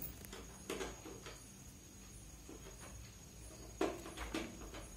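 A small screwdriver working the screws of a plastic toy laptop's battery cover, with a few light clicks and taps of plastic being handled. The sounds are faint and scattered, with a slightly stronger click about a second in and another just before the end.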